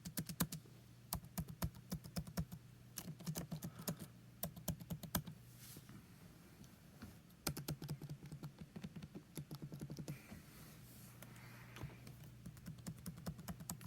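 MacBook Pro laptop keys being pressed in quick runs of soft clicks, with short pauses between the runs.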